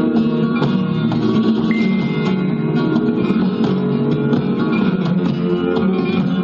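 Flamenco guitar playing a continuous, busy passage of rapidly plucked and strummed notes.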